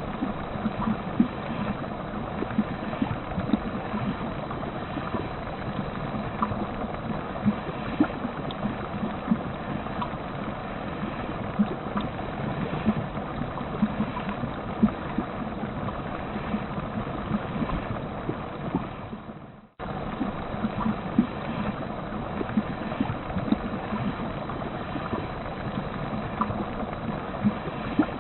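Water running through pipes: a steady rushing with frequent small gurgles and pops. About two-thirds of the way through it fades down, breaks off for an instant, then starts again.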